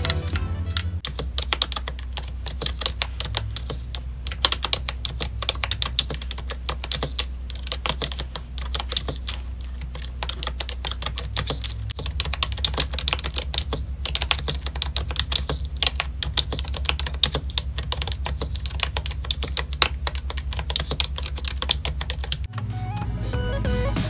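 Fast, continuous typing on a Redragon Shiva K512 full-size membrane gaming keyboard: a dense, irregular patter of key clicks that starts about a second in.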